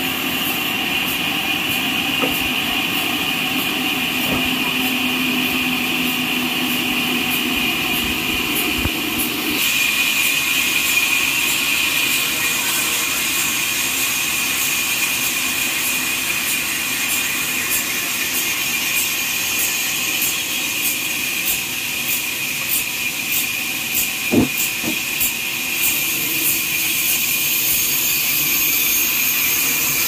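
Horizontal trolley sawmill running with a steady high whine as it saws a log. About ten seconds in, a lower hum drops away and the whine grows brighter. A few knocks of wood and trolley sound in the second half, the loudest about three-quarters through.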